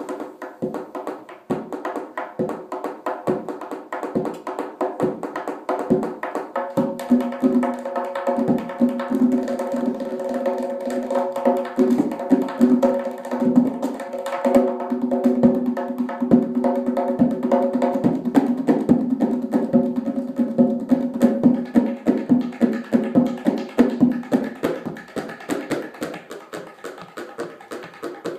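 Tonbak (Persian goblet drum) played solo with the fingers: a fast run of strokes that thickens for most of the middle into a dense roll, ringing with a steady drum tone. It thins back to separate strokes near the end.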